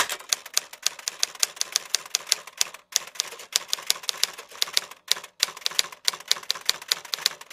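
Typewriter sound effect: mechanical typewriter keys clacking in a fast run, about five strikes a second, with two short breaks about three and five seconds in.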